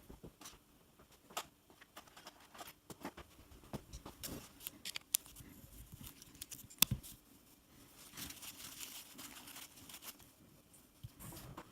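Scattered small clicks and light rustles of a padlock and tools being handled on a bench, with one sharper click about seven seconds in.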